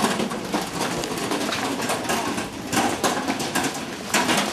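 Small metal pushcart rattling as it is wheeled over paved ground, a run of irregular clicks and knocks.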